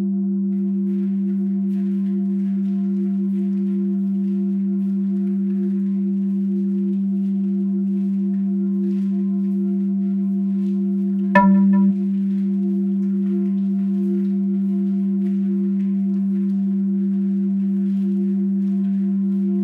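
A steady, sustained ringing drone with a low tone and several higher overtones, unchanging throughout. About eleven seconds in, a single sharp struck note rings out briefly over it.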